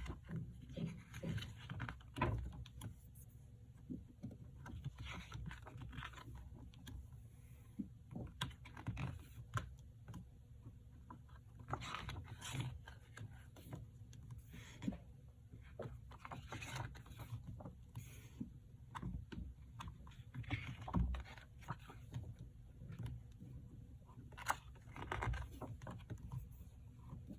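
Irregular handling noises from a K-pop album's packaging: taps, clicks and rustling scrapes of cardboard, paper and plastic as the contents are taken out and handled.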